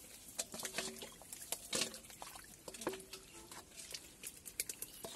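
Hands splashing and squelching in shallow muddy water: a run of irregular small splashes, drips and wet slaps.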